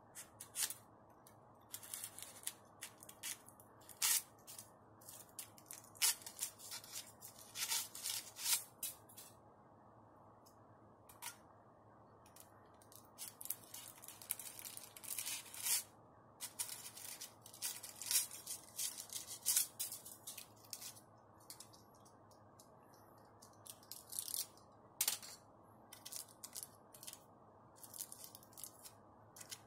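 A knife cutting and tearing thick aluminum foil: irregular crinkling and crackling as the excess foil is trimmed from the end of a rolled foil capacitor.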